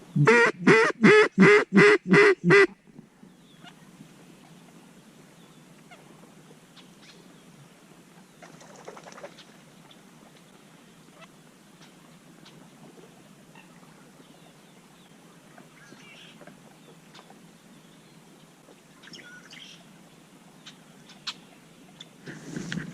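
Duck call blown in a string of seven loud, evenly paced hen-mallard-style quacks over about two and a half seconds, cutting off sharply. Faint scattered bird chirps follow.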